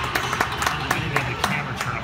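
Spectators clapping, scattered claps that thin out towards the end.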